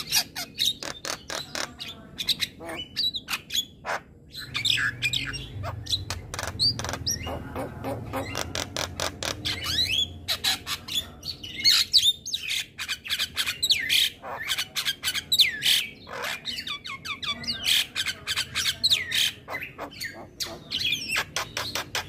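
Javan myna (jalak kebo) singing: a rapid, unbroken chatter of sharp clicks, harsh squawks and gliding whistles.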